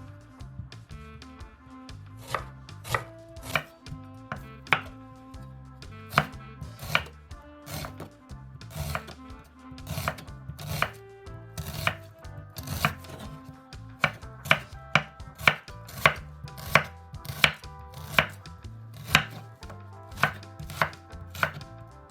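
Knife chopping food on a cutting board: irregular sharp strokes, a few each second, some in quick pairs.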